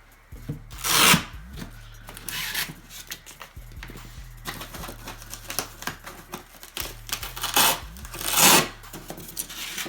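Packaging being handled while a large shipping case is unpacked: several short bursts of tearing and rubbing, the loudest about a second in and near the end, with small clicks and knocks between them.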